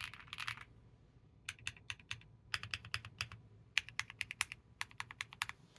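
Typing on a Moeetech Glitter65 mechanical keyboard with lubed MMD Princess tactile switches: a quick flurry of keystrokes at the start, a short pause, then separate key presses at several a second.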